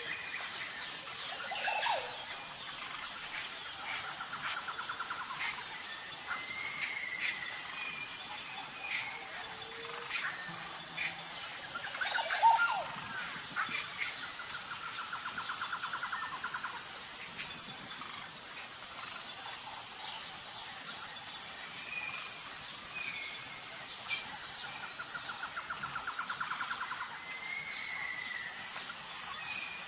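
Tropical forest ambience: a steady, high-pitched insect drone with an even pulsing, under scattered bird chirps and calls. A rapid buzzing trill comes back about every ten seconds, and a short, louder call stands out about twelve seconds in.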